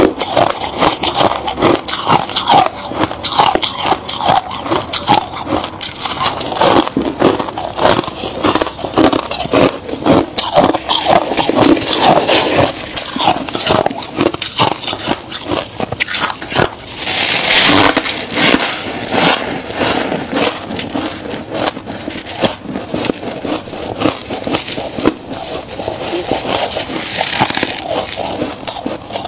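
Freezer frost crunching and crackling as it is bitten and chewed, with scraping as gloved hands gather the frost, in close, dense strokes; a longer, louder scraping stretch comes about seventeen seconds in.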